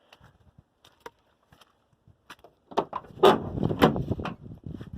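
An old junkyard pickup's door being worked open: a few faint clicks, then, from about halfway in, a run of loud metal clunks and rattles.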